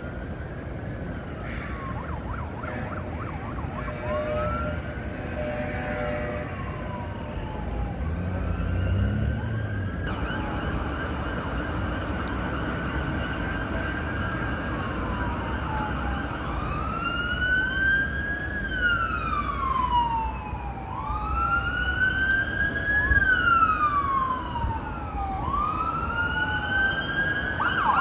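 Emergency vehicle siren wailing, its pitch rising and falling about once every two to three seconds and growing louder over the second half, over a steady low rumble of traffic.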